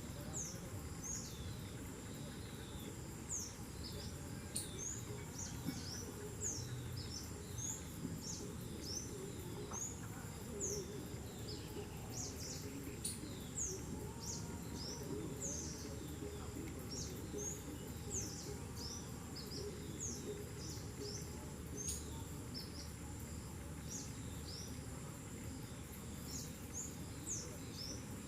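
Birds giving many short, high, downward-slurred chirps, several a second and continuing throughout. Under them is a steady low background noise and a faint steady high tone.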